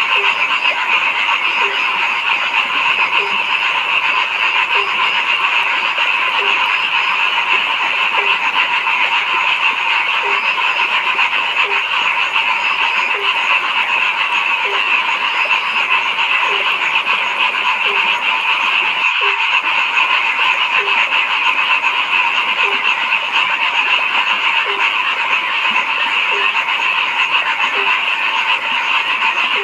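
A dense chorus of frogs calling without a break, with one lower-pitched frog croaking regularly, a little more than once a second.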